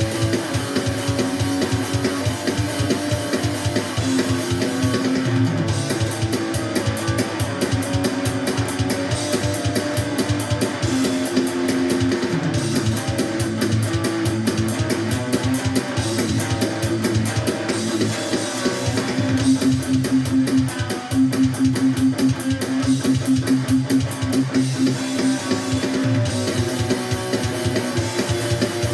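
Instrumental band jam: strummed guitar over bass, with a drum kit keeping a steady beat. The drums come in about five seconds in and drop out near the end.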